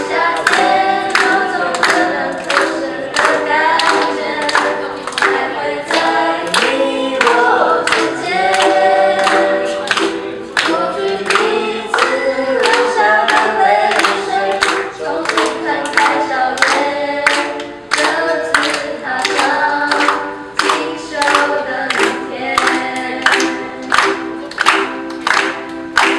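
A group of voices singing a song together, accompanied by strummed ukuleles, with a sharp steady beat about twice a second.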